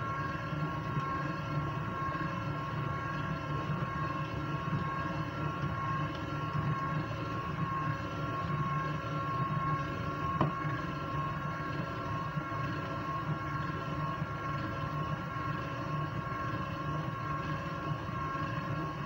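KitchenAid Artisan Mini stand mixer running steadily at a raised speed, its motor giving a steady hum and whine as the beater whips creamed butter and sugar while an egg is added. A single brief tap about halfway through.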